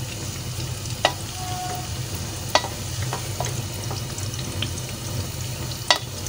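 Sliced bitter gourd (karela) frying in hot oil on a high flame, sizzling steadily as a wooden spoon stirs it. A few sharp knocks of the spoon against the pan stand out, about a second in, midway and near the end.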